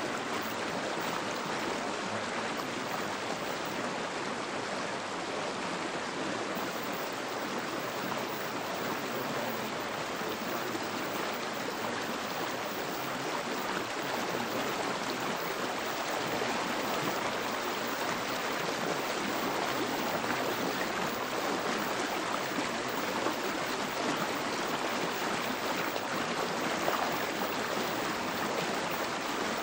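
Steady, unbroken rushing-water noise like a flowing stream, serving as the masking bed of a subliminal track with affirmations embedded beneath it.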